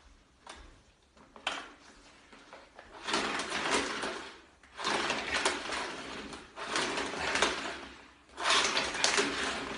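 Vacuum cleaner being handled in a failed attempt to switch it on: a couple of faint clicks, then four noisy, rattling bursts of about a second and a half each. No steady motor hum starts.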